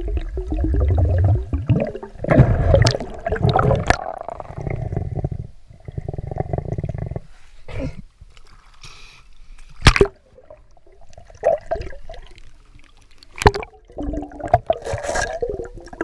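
Water gurgling and sloshing around the camera as a diver moves underwater and breaks the surface, broken up by several sharp knocks, the loudest about ten seconds in.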